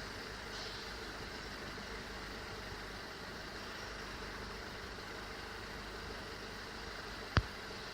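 Mercedes W204 C200 engine idling steadily just after a cold start, the rough cold idle the owner is trying to trace. A single sharp click sounds near the end.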